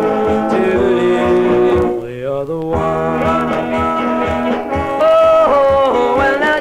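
A 1962 rock and roll record playing: a small band with a steady drum beat under a sung melody, which dips and slides up in pitch about two seconds in.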